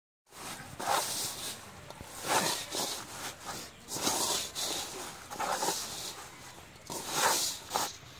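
A hand scraping and kneading a crumbly meal mixture against the bottom of a metal bowl: a series of rough, rustling strokes about a second apart.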